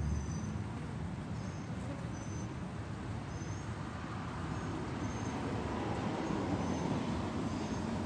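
A baby northern mockingbird calling: short, thin, high-pitched calls repeated about once or twice a second over a steady background noise.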